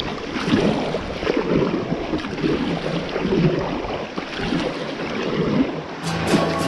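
Churning river water rushing around a kayak's bow in a small rapid, with paddle strokes splashing in the current. Music comes in near the end.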